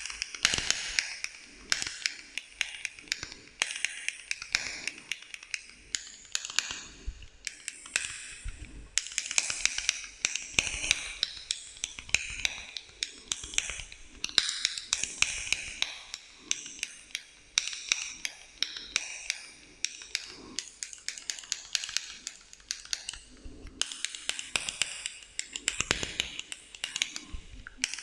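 ASMR tapping and clicking on small household objects, a box, a spoon and a stapler, heard through an echo effect. Many quick, irregular clicks and taps come every second, with a hissing, scratchy sound between them. The tapping pauses briefly a few times.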